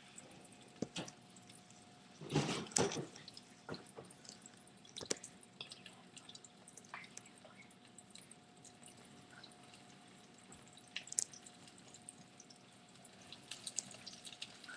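Breaded flounder frying in oil in a skillet: faint, irregular crackles and pops of spitting oil, with a small cluster of them about two and a half seconds in.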